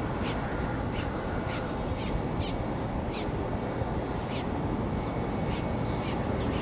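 Birds calling in short sharp chirps, about two a second, over a steady low rumble.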